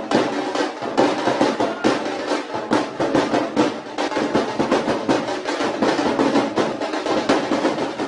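Rapid, dense drumming with drum rolls, many strokes a second and little deep bass.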